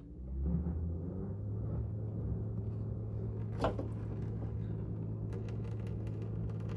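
Bosch dishwasher drain pump starting up and running with a steady low hum, with a single click about three and a half seconds in and light ticking near the end. It pumps only a little water, in keeping with the E-24 drain fault.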